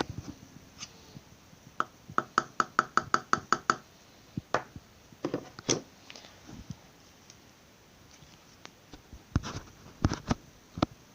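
A small plastic container of gold glitter being tapped and shaken over a cup: a quick run of light, ringing taps, about five a second, then a few scattered knocks.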